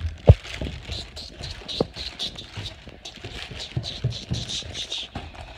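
Footsteps on stairs knocking at an irregular pace, the loudest about a third of a second in, with rustling and rubbing close to the microphone from the device being carried.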